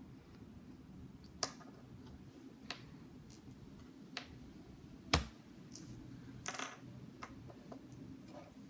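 Lego plastic pieces being handled and pressed together: a few separate sharp clicks and knocks about a second apart, with a short rustle of parts between them.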